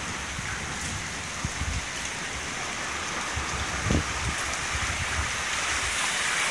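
Heavy rain pouring down steadily, a downpour hissing on the street, trees and balcony, with one short low thump about four seconds in.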